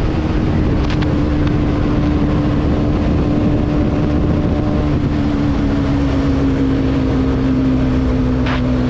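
Bajaj Pulsar NS200's single-cylinder engine running at high speed, heard from on the bike, its note slowly falling as the bike eases off from about 146 to 116 km/h.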